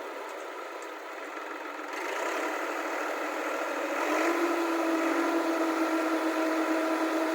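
Diesel engine running steadily; about four seconds in it speeds up a little and holds at the higher, louder note.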